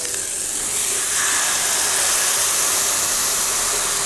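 Butter sizzling in a very hot stainless steel pan, a steady hiss that grows a little louder about a second in; the pan is hot enough that the butter dances and smokes.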